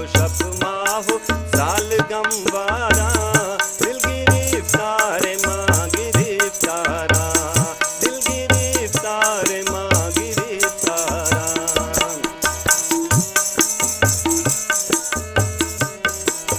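Tabla and harmonium playing a folk-song accompaniment between sung lines, the tabla's bass drum striking about once a second. A melody wavers and bends in pitch over the first twelve seconds, then settles into steadier held notes.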